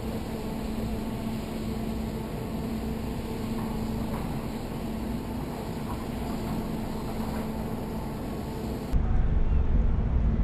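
Steady drone of a Great Lakes freighter's engines as the ship passes close alongside: a low hum with a few steady overtones over a noisy rumble. About nine seconds in the sound cuts abruptly to a louder, lower rumble.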